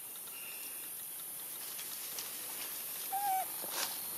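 A young macaque gives one short squeak about three seconds in, over a steady high hiss, and a sharp click follows just under a second later.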